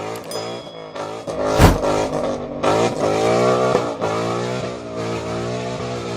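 A car engine revving repeatedly, its pitch climbing and falling again and again, with a sharp bang about one and a half seconds in.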